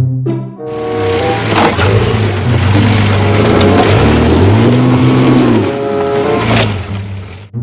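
Loud vehicle engine-like noise whose pitch rises and falls in arcs, starting suddenly about half a second in and cutting off near the end, over background music.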